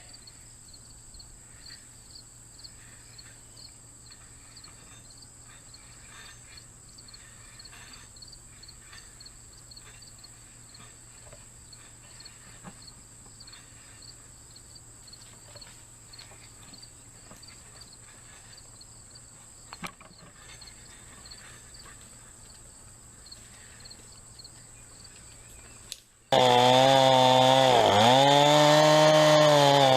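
A steady chorus of crickets or other insects with a faint low hum. About 26 seconds in, after a brief drop-out, a chainsaw runs loud at high revs, its pitch dipping and recovering a couple of times as it bites into the wood.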